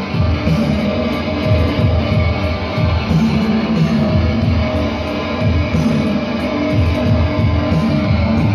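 Live rock music played loud, led by a heavy electric guitar through an amplifier.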